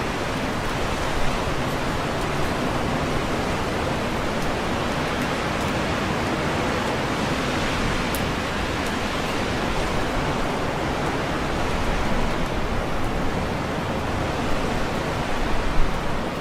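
Strong wind blowing through leafy trees, the leaves rustling in a steady rushing noise that swells a little near the end.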